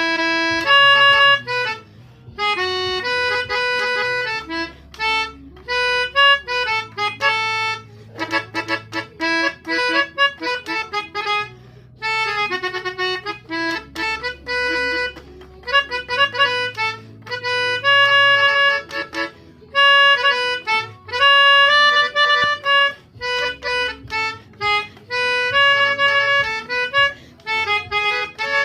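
Pianika (melodica) playing a telolet basuri–style bus-horn tune in short bursts of quick notes and held tones, over low sustained bass notes that change every couple of seconds.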